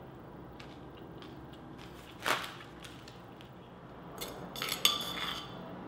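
A spoon scraping and clinking against the inside of a clay mortar, in a cluster of strokes a little after four seconds in, preceded by one louder knock about two seconds in and scattered small clicks.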